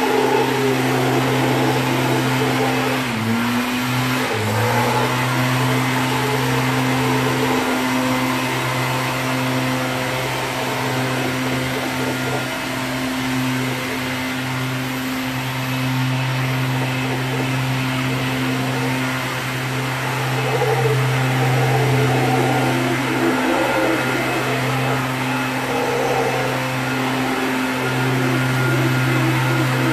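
Mantled howler monkeys roaring: a steady, low droning chorus with a few short dips and breaks.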